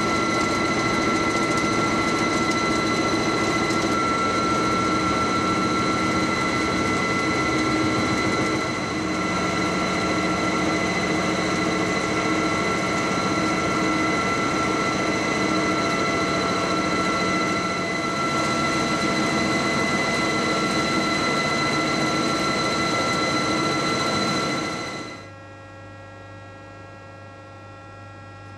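Weingaertner rotor lathe running steadily: a dense machine whirr with several high steady tones. About 25 seconds in it drops to a much quieter low hum.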